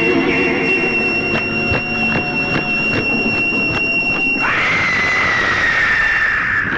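A high, steady squealing tone with a regular ticking about two and a half times a second, which gives way, a little past halfway, to a hissy whine that slowly falls in pitch.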